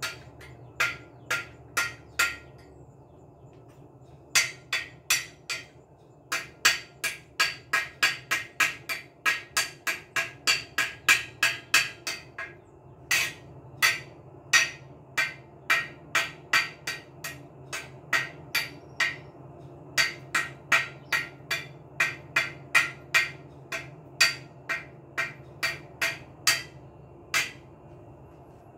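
Repeated hammer blows, about two to three a second, with a pause of about two seconds shortly after the start before the hammering picks up again.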